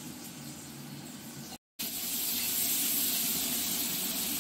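Tomatoes and salt sizzling in hot oil, a steady hiss. It cuts out for an instant about one and a half seconds in and comes back louder.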